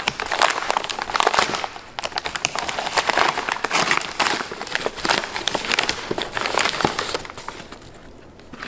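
A yellow padded paper mailer being torn open and crumpled by hand: dense crackling and crinkling paper, easing off near the end as the box is drawn out.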